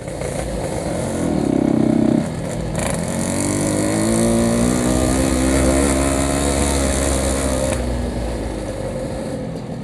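Yamaha RX-King's 135cc single-cylinder two-stroke engine running under way, its exhaust note rising in pitch as it accelerates from about three seconds in, holding, then easing off near the end.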